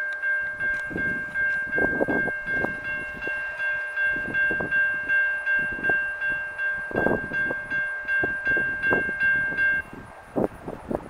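Railroad grade-crossing warning bell ringing rapidly, about three strikes a second at one steady pitch, then stopping abruptly near the end. Irregular low thumps sound underneath.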